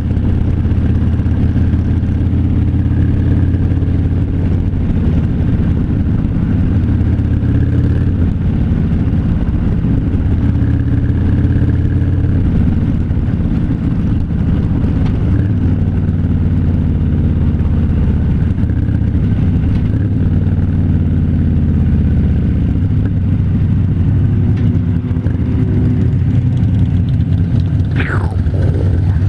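Harley-Davidson V-twin motorcycle engine running steadily at cruising speed during a ride, holding a fairly even pitch. Near the end a brief sound falls sharply in pitch.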